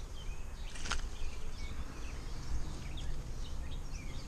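Wild birds chirping and singing, many short high chirps overlapping, over a low rumble, with one sharp click about a second in.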